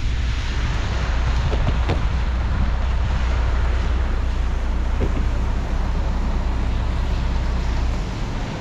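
Car driving on a wet road in the rain: steady wind noise buffeting the microphone over a low rumble and tyre hiss. The rumble drops away near the end as the car comes to a stop.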